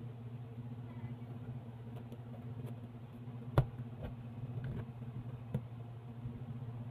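Scissors snipping and cutting through plastic packing tape on a cardboard box, with a few sharp clicks, the loudest about three and a half seconds in. A steady low hum runs underneath.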